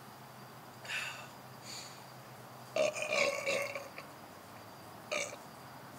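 A man belching after gulping malt liquor from a can: a long, drawn-out burp about three seconds in, the loudest sound here, with shorter burp-like noises about a second in and near the end.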